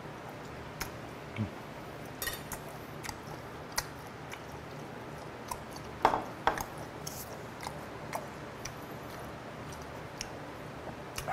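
A person chewing a mouthful of yellow stingray, with scattered small clicks of chopsticks. About six seconds in, a ceramic sauce dish is set down on the wooden table with a couple of sharper knocks.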